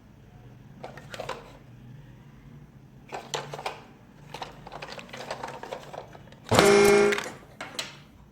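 Clicking and rattling of plastic toys being handled, in several short runs. About six and a half seconds in comes a loud pitched sound lasting under a second.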